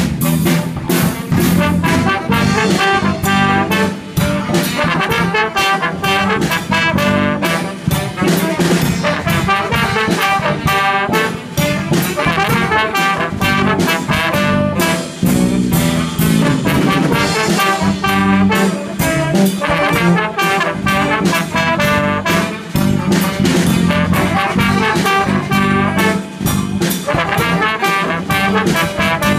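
Jazz combo playing live, trombones carrying the melody over a steady drum-kit beat.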